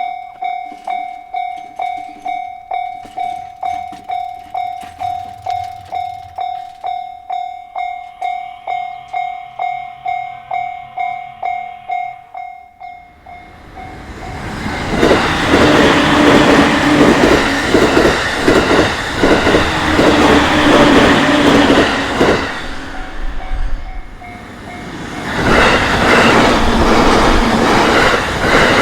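Japanese level-crossing warning bell ringing steadily, about two dings a second. About halfway through, an electric train passes close by with loud wheel and rail noise that drowns out the bell, dips briefly, then rises again near the end.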